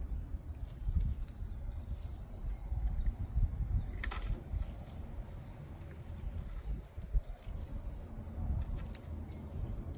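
Blackbirds giving short high chirps at intervals, with a few sharp taps and knocks, over a steady low rumble.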